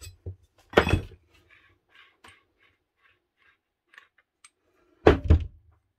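A metal keyed drill chuck being worked off the spindle of an old Makita 8410BV drill. There is a knock about a second in, then faint light clicking as the chuck turns on its thread, and two louder knocks near the end.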